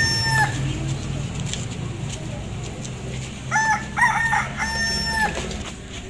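A rooster crowing twice. The tail of one crow comes right at the start, then a full crow about three and a half seconds in: a few short notes, then one long held note. A steady low hum runs underneath and fades out near the end.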